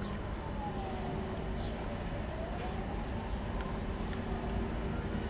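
Steady low background rumble with a faint motor-like whine that glides down and then back up in pitch. About four seconds in, a metal spoon clicks faintly a couple of times as it sets filling on a dough circle.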